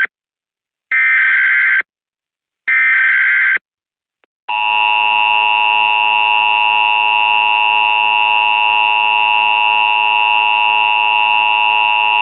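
Emergency Alert System broadcast signal: the SAME header's short bursts of two-pitch data tones, repeated about a second apart, then the long steady EAS attention tone for about eight seconds, which cuts off sharply. It heralds a civil danger warning.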